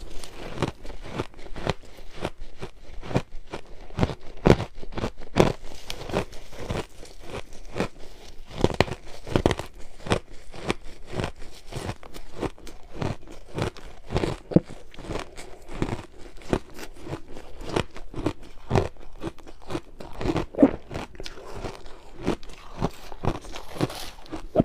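Ice being bitten and chewed close to the microphone: a steady run of sharp, irregular crunches, a few every second.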